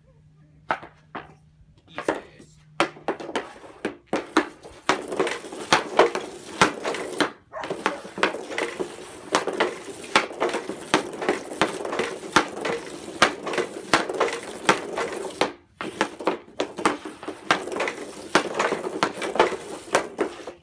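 Hockey stick blade rapidly tapping and dragging a puck across concrete during stickhandling: a fast run of sharp clacks over a steady scrape. It starts with a few scattered taps, then turns continuous about four seconds in, with two brief pauses.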